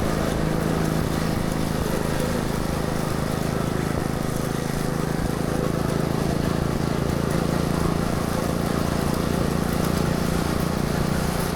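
A vehicle engine running steadily at an even pitch, with road and traffic noise around it.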